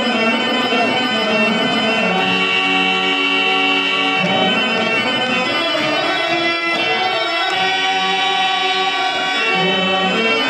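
Harmonium playing in Telugu padya drama style: long held notes alternating with quicker, ornamented melodic runs.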